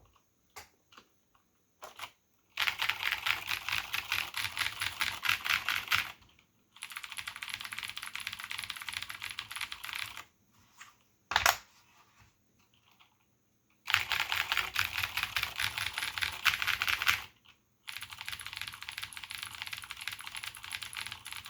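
Cherry G80-1813HFU mechanical keyboard with clicky Cherry MX Blue switches and doubleshot keycaps being typed on fast: four runs of rapid clicking keystrokes a few seconds each, the first and third louder than the other two. A single sharp knock falls between the second and third runs, and a few lone key clicks come before the first.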